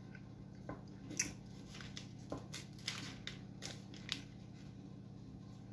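A person chewing a mouthful of kulich (Russian Easter sweet bread) close to the microphone: soft wet mouth clicks and smacks, about eight spread irregularly over a few seconds. Under them is a faint steady low hum.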